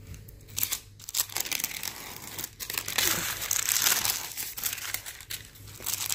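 Crinkling and rustling of a diamond painting canvas's cover sheet as it is handled and smoothed over the drilled canvas. It comes in irregular crackly bursts and is heaviest a few seconds in.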